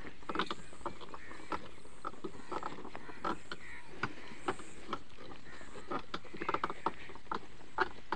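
Wooden buffalo-drawn cart rolling over a rutted dirt track, its wheels and frame creaking and knocking irregularly.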